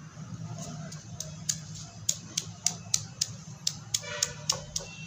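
Pestle pounding roasted onion, coconut, garlic and ginger in a stone mortar (khalbatta): sharp knocks about three a second, starting about a second in, over a low steady hum.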